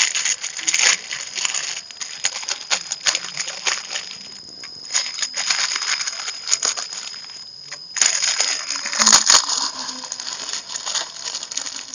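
Noodles boiling hard in a wide metal pan over a wood-fired clay stove: a dense, steady bubbling and sputtering full of small pops and clicks, with the burning wood crackling. About nine seconds in come a few louder sharp clicks and crinkles as a seasoning packet is poured into the pan.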